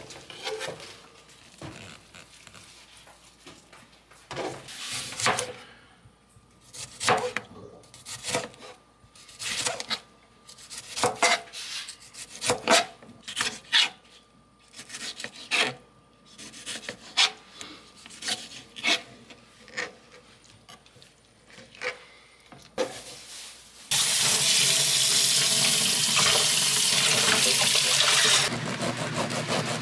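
Food-preparation handling sounds: a string of separate sharp clicks and knocks as utensils and containers are handled. About 24 seconds in, a kitchen tap starts running hard with a loud, steady rush. A few seconds later it drops to a softer, steady rush.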